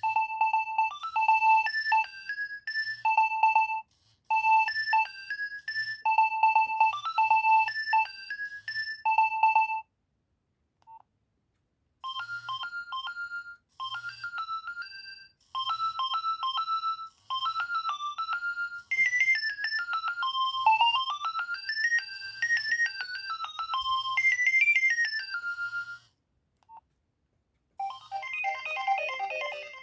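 Nokia 2300 mobile phone ringtones playing one after another. First a short electronic phrase repeats until about ten seconds in. After a brief pause, a second melody runs up and down in quick notes. A third tune starts near the end.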